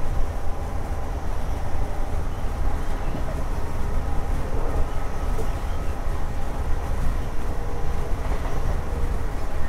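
An East Midlands Railway HST running at speed: the class 43 power car's Paxman VP185 diesel engine running, with wheels on the rails, under a steady heavy low rumble.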